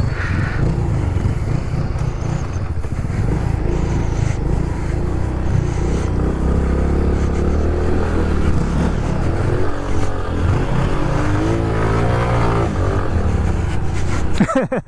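Honda Pop 110i's small single-cylinder four-stroke engine running as the motorcycle is ridden, its pitch rising and falling with the throttle. Loudness briefly dips near the end.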